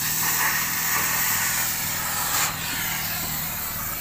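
Flame cutting torch hissing steadily as it cuts through the sheet-metal body of a Suzuki Carry. The hiss drops sharply about two and a half seconds in. A steady low engine hum runs underneath.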